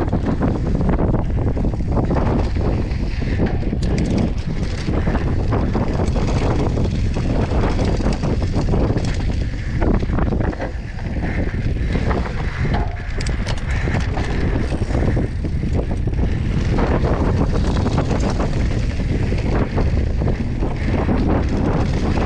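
Heavy wind buffeting the microphone during a fast bicycle ride, over a steady rumble with many small rattles and knocks from the tyres on rough ground.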